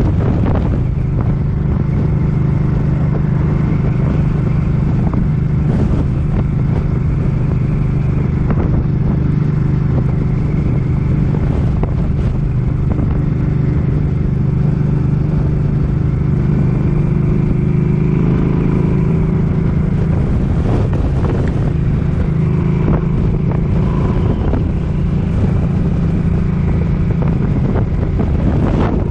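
Suzuki Boulevard M50's V-twin engine running steadily at road speed, with wind buffeting the microphone.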